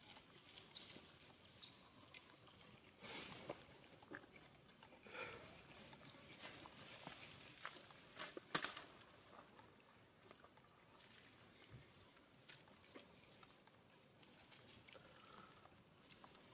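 Near silence with scattered faint rustles and clicks: a louder rustle about three seconds in, and a couple of sharp clicks about eight and a half seconds in.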